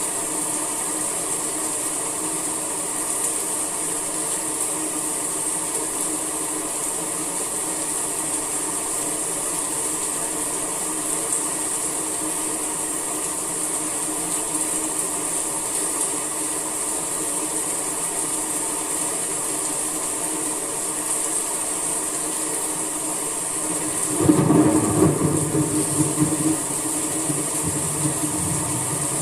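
Steady summer rain hissing. About 24 seconds in, a louder low rumble swells for two or three seconds and fades back into the rain.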